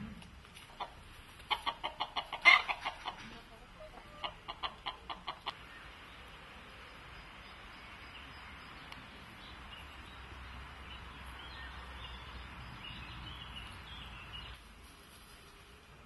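Domestic hens clucking in two quick runs of short, sharp notes, about five a second: the first and loudest around two seconds in, the second around four to five seconds in. A faint steady hiss follows and stops suddenly near the end.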